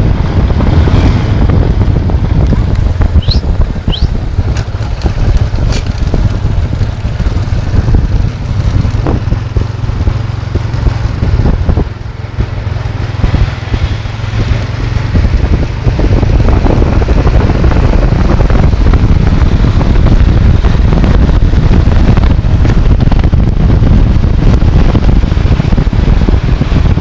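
Heavy wind buffeting the microphone over a moving car, a loud steady rush that eases for a few seconds near the middle.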